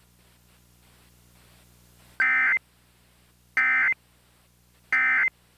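Emergency Alert System end-of-message data tones: three identical short buzzy bursts of SAME digital code, about 0.4 s each and a little over a second apart, marking the end of the alert. They come after about two seconds of faint hum.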